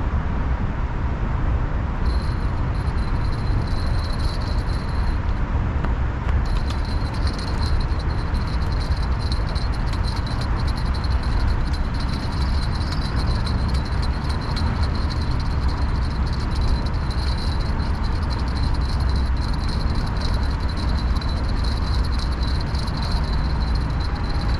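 Steady outdoor rumble of road traffic with no distinct events, plus a faint steady high whine from about two seconds in.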